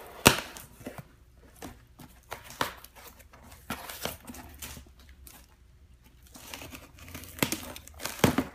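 Cardboard shipping box being handled and opened by hand: cardboard and packing tape crinkling and tearing in irregular rustles, with a few sharp knocks, the loudest about a quarter-second in.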